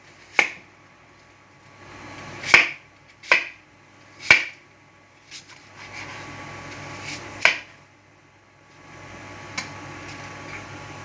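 A kitchen knife knocking on a cutting board as fruit is cut and seeded: about seven sharp knocks at irregular intervals of one to two seconds.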